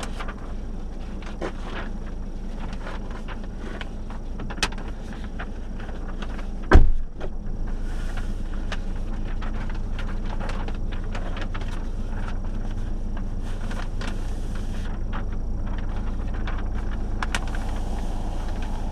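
Car engine idling with a steady low hum, and a car door shutting with one loud thump about seven seconds in.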